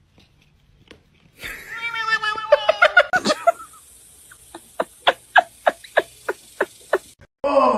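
A cat's drawn-out meow, then a person laughing in a string of short ha's, about three a second.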